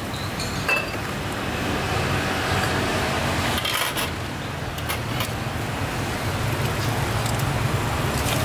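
Steady rumble of road traffic passing, with a few light clinks of crockery and utensils.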